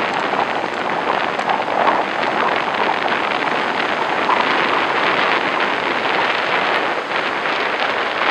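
Strong storm wind buffeting the microphone over heavy surf washing up a sandy beach: a loud, steady rush of noise.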